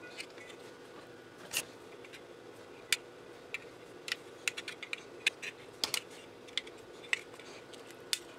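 Irregular sharp clicks and taps of a thin sheet-metal shield and circuit boards being handled and knocked together, over a faint steady hum.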